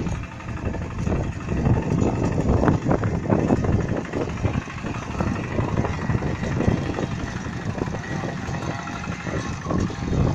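Engine of a walk-behind two-wheel hand tractor running steadily under load as it tills a flooded rice paddy, its cage wheels churning through the mud.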